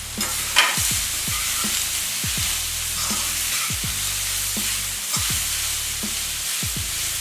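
Crumbled tender jackfruit frying and being stirred in hot coconut oil in a kadai, with a steady sizzle and a sharp knock against the pan about half a second in.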